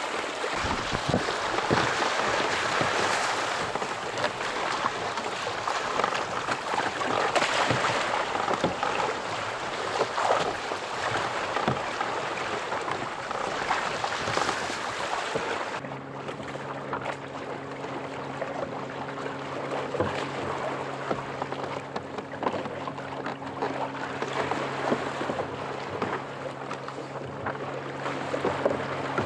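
Choppy sea slapping and splashing against a sea kayak's hull, with wind buffeting the microphone. About halfway through, the splashing turns quieter and a steady low hum runs underneath.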